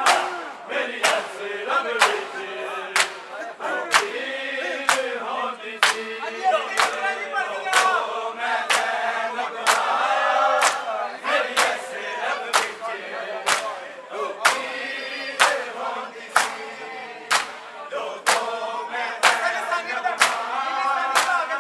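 Crowd of men chanting in unison while beating their chests with open hands (matam), the sharp slaps landing together about once a second.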